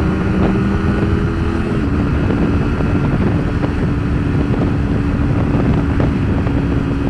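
Kawasaki Ninja 250R motorcycle engine running at a steady cruise, its even note heard from inside the rider's helmet under heavy wind rush.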